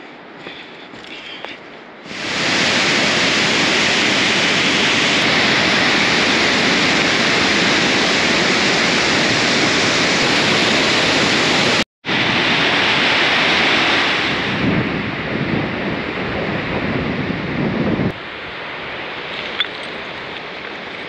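Loud, steady rushing of a glacial river in white-water rapids. It starts suddenly about two seconds in, breaks off for an instant near the middle, and falls to a much quieter hiss near the end.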